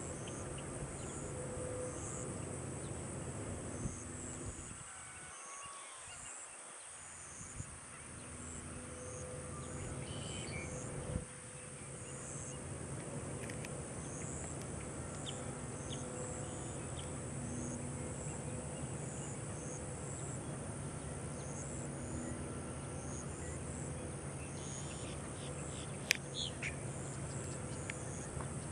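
Insect chorus: a steady high buzz with short, high chirps repeating about once a second, over a low rustling background noise. A sharp click comes near the end.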